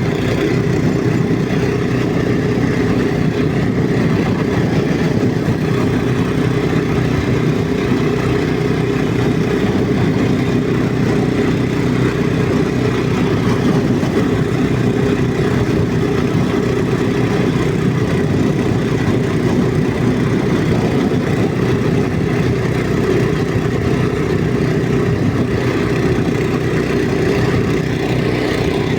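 Walk-behind tractor (motoblock) engine running steadily under way, with an even, unchanging note.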